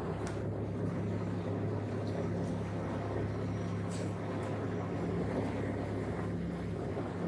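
Steady drone of a small propeller plane's engines heard from inside the cabin, with a low, even hum.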